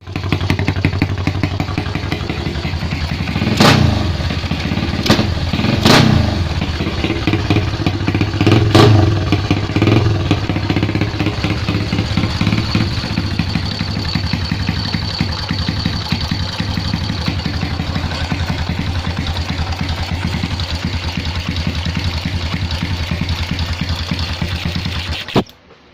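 Motorcycle engine idling steadily, with several quick throttle blips in the first ten seconds, then cutting off suddenly near the end.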